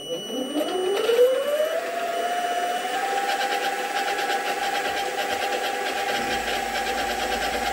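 Sieg SX2.7 mini milling machine's brushless spindle motor starting up: a whine that rises in pitch over about two and a half seconds, then settles and runs at a steady speed.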